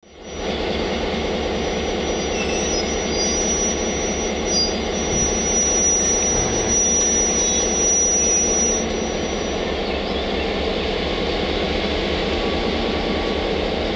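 SNCB class 62 diesel locomotive's GM two-stroke V12 engine running steadily as it moves slowly hauling a train of ballast hopper wagons. A thin high squeal rides over it until about ten seconds in.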